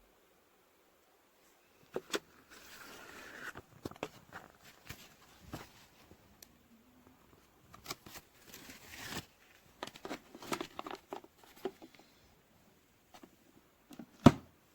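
Handling noises: a string of irregular clicks and knocks with two spells of rustling, and one sharp knock near the end, the loudest of all.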